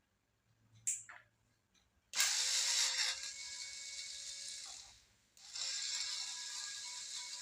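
Electric screwdriver running in two spells of about three seconds each, a steady motor whine with gear whirr, backing out laptop case screws. A sharp click comes about a second in.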